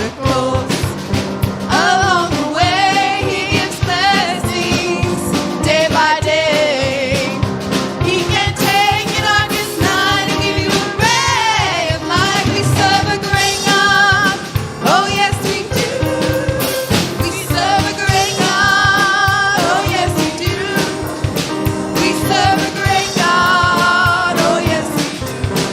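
Live gospel worship music: a band playing steady chords while a woman leads the singing, her held notes wavering with vibrato.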